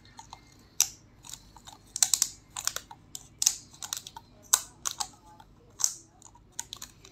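Thin plastic lid of a small sauce cup clicking and crackling as fingers pry at it, a string of irregular sharp clicks.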